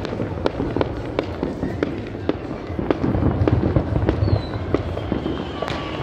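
Fireworks going off: a rapid, irregular string of sharp bangs and cracks, several a second, over a continuous low rumble.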